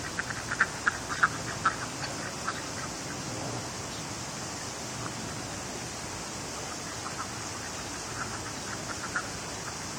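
Ducks quacking in quick runs of short calls, one run in the first couple of seconds and another near the end, over the steady rush of creek water.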